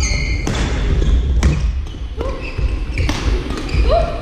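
Badminton doubles rally: sharp racket strikes on the shuttlecock about once a second, with sports shoes squeaking on the hall floor in short rising chirps between the hits.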